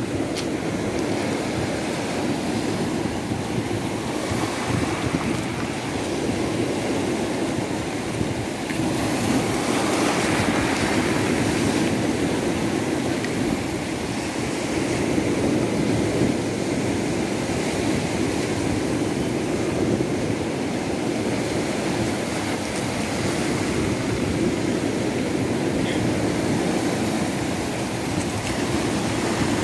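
Sea surf breaking and churning over a pebble shore where a muddy, rain-swollen river runs into the sea: a continuous rush of water that swells and eases with the breakers.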